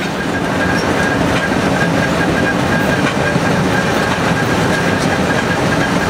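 Freight train led by a high-hood EMD GP38-2 diesel locomotive running at speed, heard from a car pacing alongside: a steady, loud mix of the locomotive's diesel engine and wheels on the rails.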